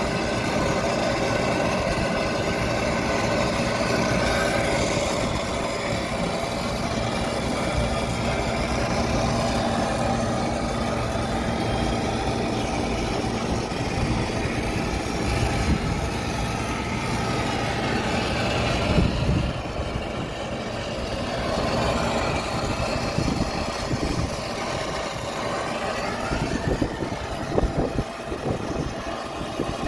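An engine idling steadily, with a brief change about two thirds through and a few knocks near the end.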